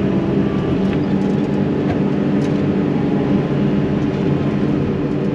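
Yanmar SV100 excavator's diesel engine running steadily, heard from inside the cab.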